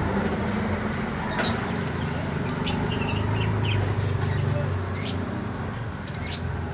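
Parrots chirping: a handful of short, high calls scattered through, over a steady low hum.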